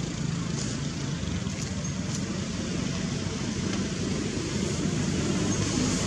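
Steady low rumble with an even hiss, unbroken throughout.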